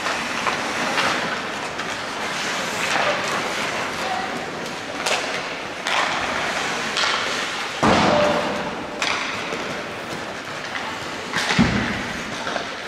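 Ice hockey play: skates scraping the ice, clacks of sticks and puck, and heavy thuds against the boards, the loudest about eight seconds in and another near the end.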